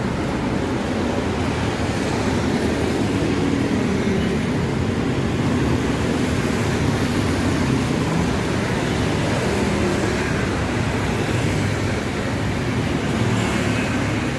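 Street traffic: vehicle engines running and road noise in a steady, unbroken mix.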